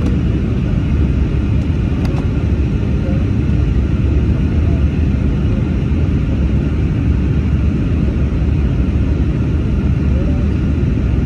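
Steady, deep rumble of an airliner cabin on descent: engine and airflow noise heard from inside the cabin.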